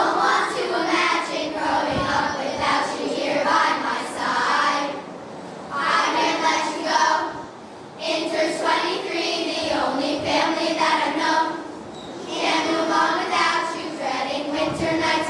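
A large choir of girls singing together, in long phrases with short breaks between them.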